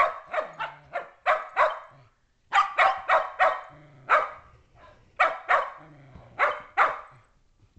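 Shetland sheepdogs barking in play: about sixteen sharp barks in quick runs of two to four, with short pauses between.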